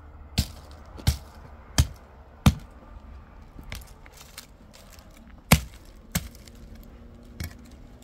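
Dry brushwood sticks being snapped by hand: about eight sharp, separate cracks at uneven intervals, two of them louder than the rest.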